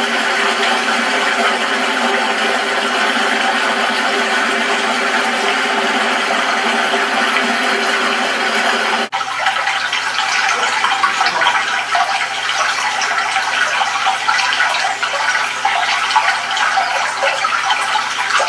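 Steady rushing sound of running water played through a TV speaker, with a faint held drone under it; about nine seconds in it cuts abruptly to a rougher, crackling rush.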